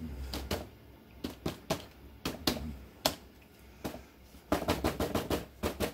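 Crumpled paper towel loaded with acrylic paint being dabbed onto watercolor paper in a series of light, irregular taps, with a quick run of taps about four and a half seconds in.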